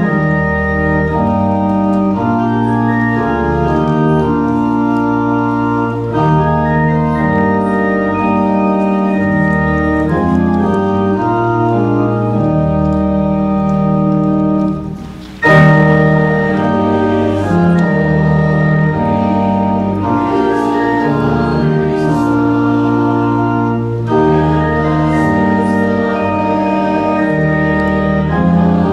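Church organ playing a hymn in full sustained chords, with a brief break between phrases about halfway through.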